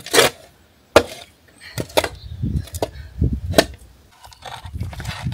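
A hand digging tool striking stones and packed soil in a trench: about five sharp knocks, roughly one a second.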